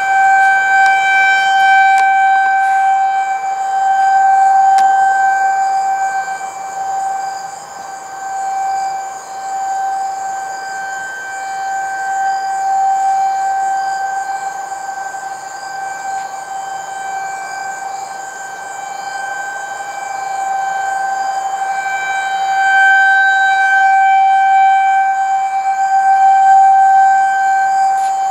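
Outdoor civil-defense tornado warning siren sounding a steady, unbroken tone for a tornado warning. Its pitch holds level while its loudness slowly swells and fades, stronger near the start and again near the end.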